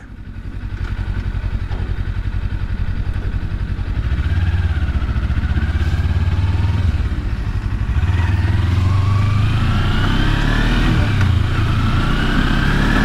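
Kawasaki Versys-X 300's parallel-twin engine pulling away from low speed and accelerating, its pitch climbing and dropping back at each of three upshifts, under a steady low rumble.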